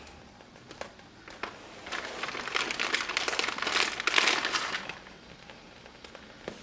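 Crinkling and rustling, like thin plastic packaging being handled, for about three seconds starting about two seconds in, with a few scattered clicks before and after.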